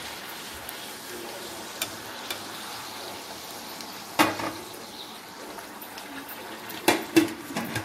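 Small puris deep-frying in hot oil, a steady sizzle, as they are fried until golden so they turn crisp. A metal spatula taps lightly against the pan early on, then clacks against it sharply about four seconds in and twice near the end.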